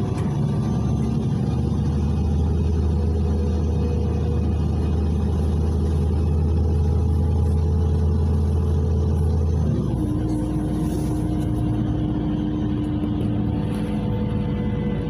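Natural-gas engine of a LiAZ 5292.67 city bus (Weichai WP7NG280E51) running under way, heard from inside the passenger cabin as a steady low hum with road noise. About ten seconds in, the engine note drops to a lower pitch and then keeps easing lower.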